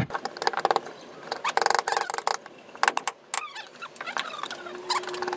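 Steel carving gouge pushed by hand through soft wood, paring off chips in a series of short scraping, crackling cuts.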